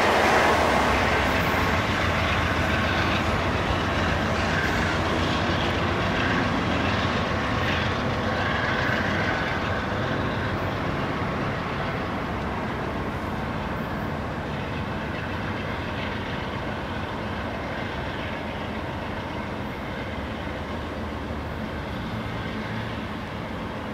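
Freight train rolling on the rails, a steady rumble of wheels and cars that slowly fades.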